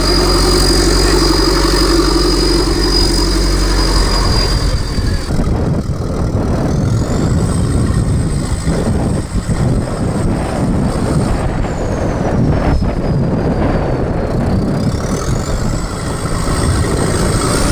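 Off-road 4x4 prototype's engine running steadily for about five seconds, then working hard and rough, as under load. A high whine rises, holds, drops and climbs again with the revs.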